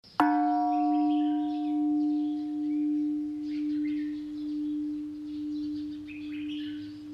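A singing bowl struck once, its deep tone ringing on with a slow, pulsing waver as it gradually fades, while its brighter overtones die away within a few seconds. Birds chirp faintly behind it.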